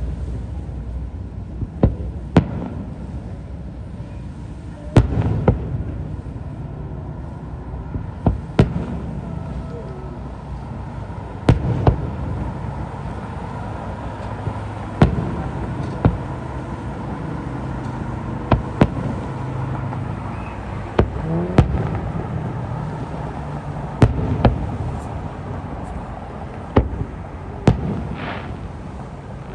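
Aerial fireworks shells bursting in the distance: sharp booms every one to three seconds, often in close pairs, over a steady low rumble.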